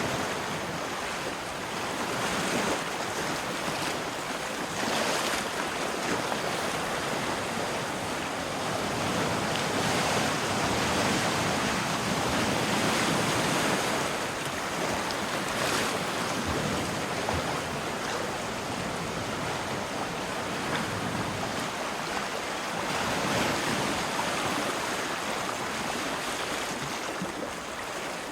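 Ocean waves washing in: a steady rush of surf that swells and eases every several seconds.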